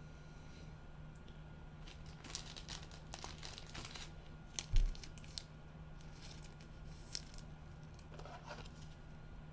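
Plastic card packaging crinkling and rustling in gloved hands as trading cards are handled, with one dull thump a little under five seconds in and a few light clicks after.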